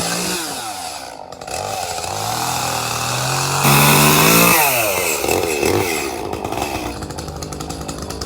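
Echo two-stroke chainsaw revving up and dropping back several times, at its loudest while held at high revs about midway, then settling into a fast, even idle near the end.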